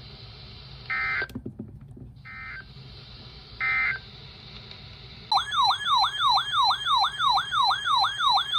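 Emergency Alert System audio between two warnings: three short data-tone bursts about a second apart, the end-of-message signal closing the previous alert. About five seconds in, a loud electronic alert tone starts, warbling up and down about three times a second.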